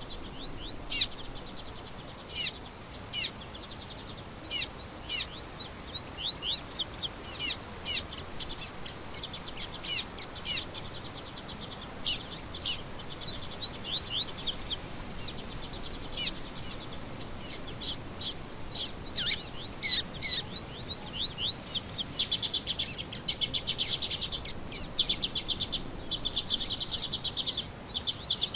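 Songbirds singing: a series of quick, sharp chirps, and from near the end a rapid, continuous trill.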